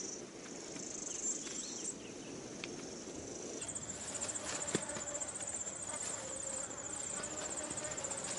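Insects trilling in natural ambience: a steady high-pitched buzz that stops about two seconds in, then a fast, evenly pulsed high trill from about three and a half seconds, with a single faint click near the five-second mark.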